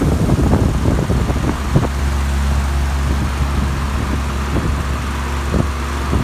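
Steady low mechanical hum, with scattered rustles and light knocks during the first two seconds and a couple of single knocks later on.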